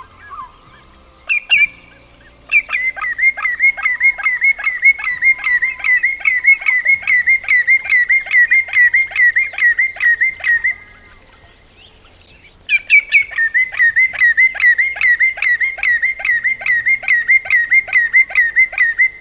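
Common greenshank calling: long runs of ringing, fluty notes repeated evenly at about three a second, in two bouts separated by a pause of about two seconds near the middle.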